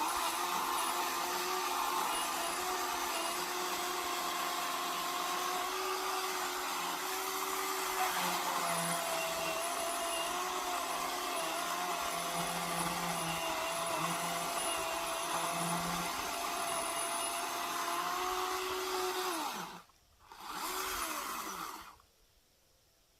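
Ryobi ONE+ 18V HP brushless 10-inch battery chainsaw cutting into a tree trunk, its electric motor whining steadily under load. Near the end the whine falls away, runs up briefly once more, winds down again and stops.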